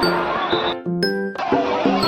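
Music with a simple melody of short held notes; it briefly drops out and thins about three quarters of a second in, then carries on.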